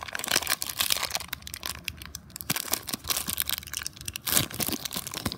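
Plastic blind-bag toy packaging crinkling and rustling in the hands close to the microphone, with many small sharp crackles as it is worked at to get it open.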